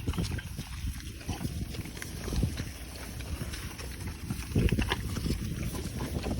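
Cows feeding: irregular tearing and chewing of grass, with two louder low swells about two and a half and four and a half seconds in.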